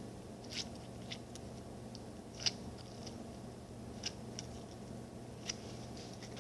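Homemade glitter slime being squeezed and stretched by hand, giving faint, irregular wet clicks and pops, about eight of them, over a steady low hum.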